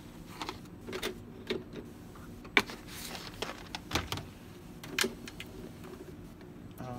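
Scattered plastic clicks and knocks from parts of a coffee machine being handled and fitted, the sharpest about two and a half seconds in, over a faint steady hum.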